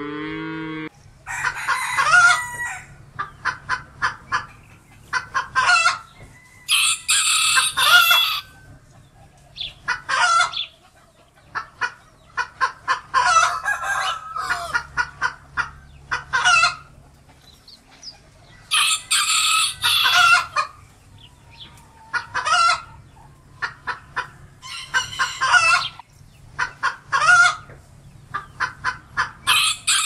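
A cow's moo ends within the first second. Then a rooster crows again and again, a long call about every five to six seconds, with quick runs of clucking between the crows.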